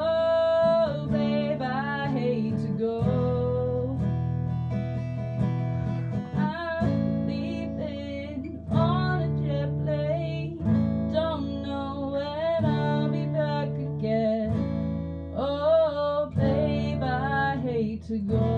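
Background music: a song with strummed acoustic guitar under a sung melody.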